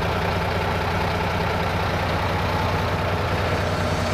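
Heavy diesel engine idling steadily at an even pitch.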